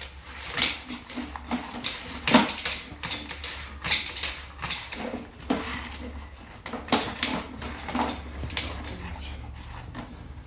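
Irregular clicks and knocks from the sewer-camera gear being handled, about one or two a second, over a steady low hum.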